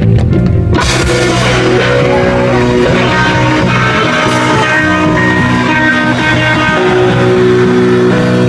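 Live rock band playing, with sustained guitar notes to the fore.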